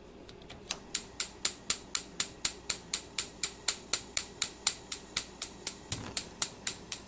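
Gas range's electric spark igniter clicking, about four sharp clicks a second, as the burner knob is held at LITE to light the gas burner. The clicking starts about a second in after a few faint ticks from the knob.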